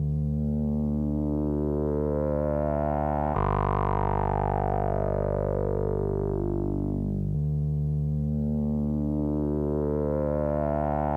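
Background music: sustained synthesizer pad chords, each held for about four seconds before changing, the sound brightening and then dulling over each chord.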